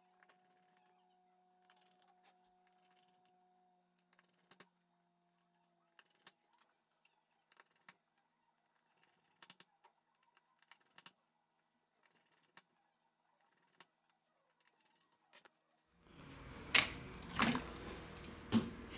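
Faint, scattered clicks and taps of small parts and tools as an LG K30 smartphone is reassembled, over a faint steady hum for the first few seconds. About three seconds before the end a louder stretch begins, with a noisy background and sharper knocks.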